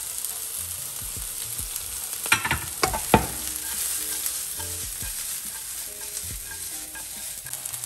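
Sliced red onion and chopped garlic sizzling in hot oil in a frying pan as the pan is shaken and tossed over the heat. A few sharp knocks come about two to three seconds in.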